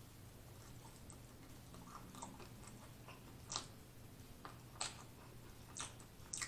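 Faint, close-up chewing and lip-smacking of a person eating, with four sharp wet smacks in the second half, each about a second apart.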